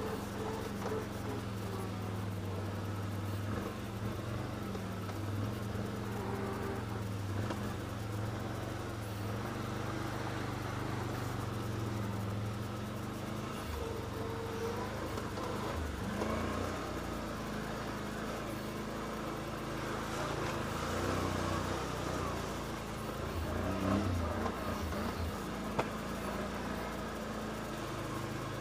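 Can-Am Outlander 500 ATV's V-twin engine running steadily at trail speed. Its note dips and rises a few times with the throttle, and there is a sharp knock near the end.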